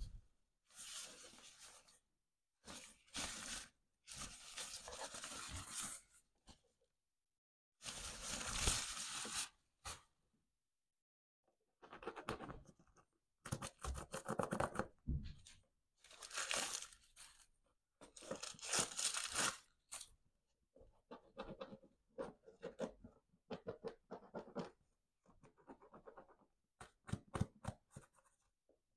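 Rustling and crinkling of packaging being handled: a nylon drawstring bag, tissue paper and a football boot turned over in the hands. The sound comes in short bursts with brief pauses between.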